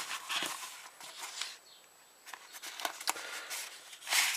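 Fabric pocket organizer being handled: cloth rustling and rubbing, a short lull, a few light clicks and taps, then a brief louder rustle near the end.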